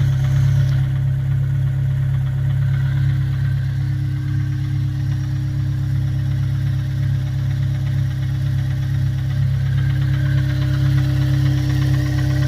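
Honda S2000 four-cylinder engine idling steadily with a rapid, repetitive knock in its note, which the owner suspects is either rod knock or a rattling timing chain tensioner.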